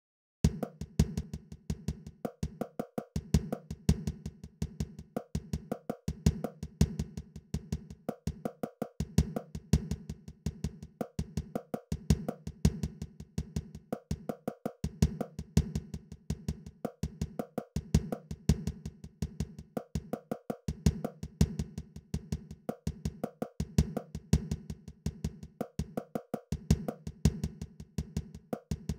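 Background music with a fast, steady wood-block beat over a low held tone, the phrase repeating every few seconds.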